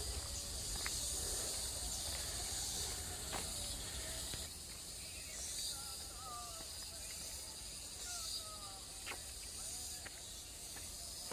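Insects calling steadily in a continuous high-pitched hiss, with a few faint short chirps in the middle.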